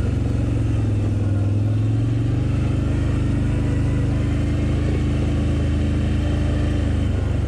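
Can-Am Outlander ATV engine running steadily while the quad is ridden along a trail, its engine note shifting slightly in pitch.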